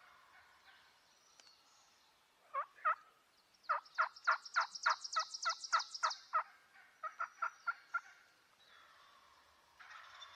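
Turkey calling in a series of sharp, evenly spaced notes: two, then a run of about a dozen at roughly four or five a second, then five more.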